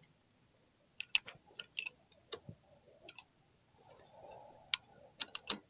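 Light metallic clicks and clinks, irregular and about a dozen in all, of old clutch plates being handled and set down, loudest about a second in and near the end.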